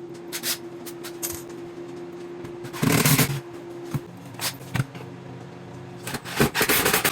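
Wooden cabinet panels being handled and set into place: scattered knocks, rubbing and scraping, with a louder scrape about three seconds in and a quick run of knocks near the end, over a steady low hum.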